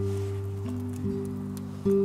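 Background music of acoustic guitar strumming chords, with the chord changing twice.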